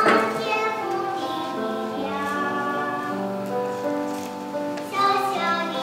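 Children's choir singing a slow song with accompaniment, holding long notes.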